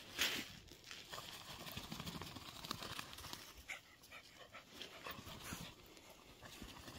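A dog panting faintly, with a couple of short sharp sounds.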